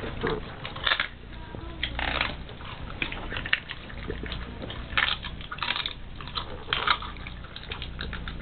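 A Rottweiler chewing and biting into raw food: irregular crunching bites, one or two a second, with pauses between.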